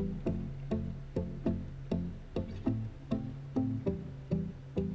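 Background music: plucked string notes in a steady rhythm, about three a second, over a low bass line.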